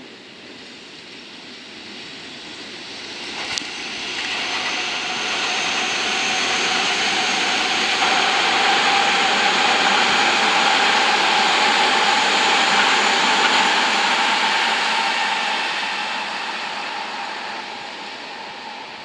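Seibu 6000-series electric train pulling out and running past: wheel-and-rail noise swells over the first several seconds, holds, then fades toward the end. Through it runs a steady motor whine that climbs slightly in pitch. A sharp click comes about three and a half seconds in.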